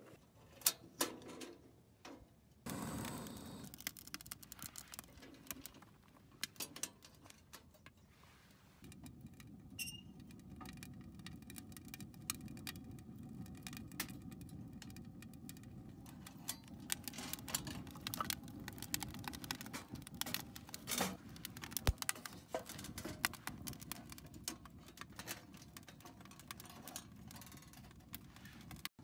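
Wood fire crackling and popping in a stainless-steel wood stove, irregular sharp snaps over a low steady rush that sets in about nine seconds in.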